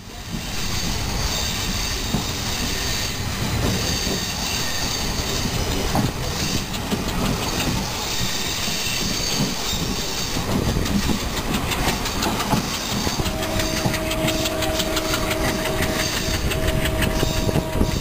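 Passenger train running at speed, heard from an open coach door: wheels clattering over rail joints amid a steady rush of wind and rumble. About two-thirds of the way through, a steady tone joins in and holds to the end.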